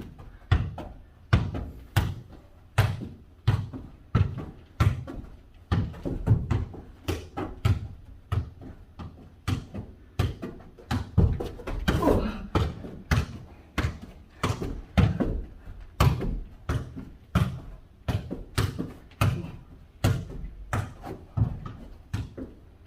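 A ball being kicked and bouncing on the floor in a long mini jokgu (foot volleyball) rally: a steady string of sharp thuds, about one every two-thirds of a second, echoing in a room.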